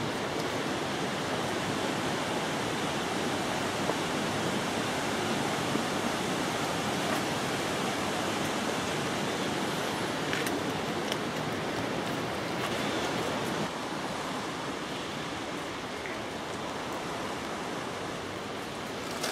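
Steady rushing water noise, easing slightly about two-thirds of the way through, with a few faint ticks.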